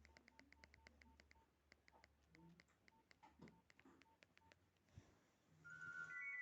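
Nokia 1616 mobile phone keypad: a quick run of key clicks, most with a short beep key tone, as the buttons are pressed repeatedly. About five and a half seconds in, a ringtone melody starts from the phone's speaker.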